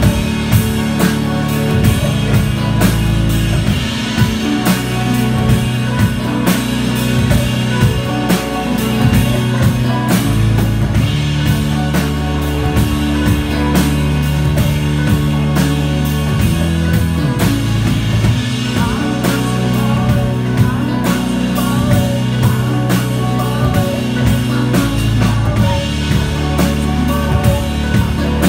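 Live indie rock band playing: a steady drum-kit beat under sustained bass and keyboard chords, with guitar.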